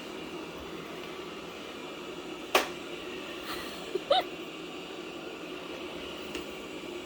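Robot vacuum cleaner running with a steady hum. A sharp knock comes about two and a half seconds in, and a short squeaky chirp follows a second and a half later.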